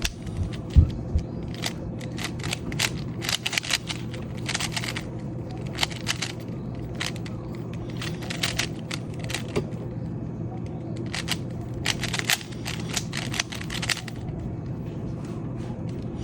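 Plastic 3x3 speedcube being turned fast during a solve: rapid clacking of the layers in quick bursts, with short pauses between them.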